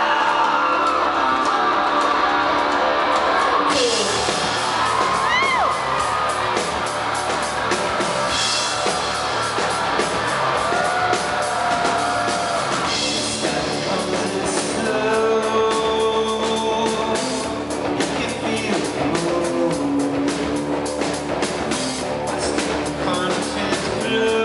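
Live rock band playing loudly through a PA, with electric guitar at the start. About four seconds in, the sound suddenly fills out as the drums and cymbals come in. A lead vocal sings over the band in the second half.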